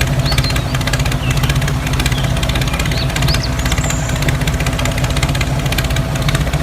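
A small motor or engine running steadily with a low, even hum, and short high chirps now and then over it.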